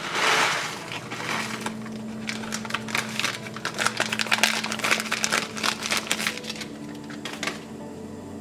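Foil-lined ration pouch crinkling and rustling as dry instant noodles are tipped out of it into a metal mess tin, with a loud rush of noise in the first second, then a run of crackles that stops near the end.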